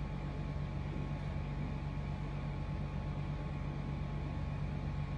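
Steady low machine hum with hiss and a faint high whine, unchanging throughout.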